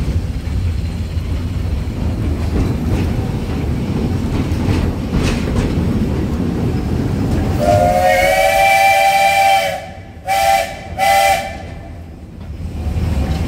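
Steam locomotive's chime whistle blowing one long blast of about two seconds, then two short blasts, over the steady rumble and wheel clicks of an open passenger car rolling along the track. The rumble drops away after the whistle and picks up again near the end.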